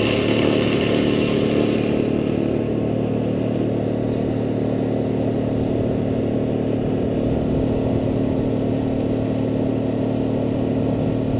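An engine running steadily at a constant speed, a little louder in the first couple of seconds and then even.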